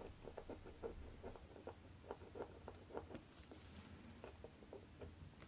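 Faint, quick light clicking from a Citizen caliber 8110A chronograph movement as steel tweezers work its hour-recording blocking lever, about five or six small clicks a second.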